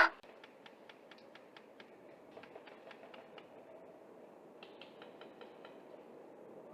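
Distant airsoft guns firing: three runs of faint, sharp clicks, about five a second, with short gaps between the runs.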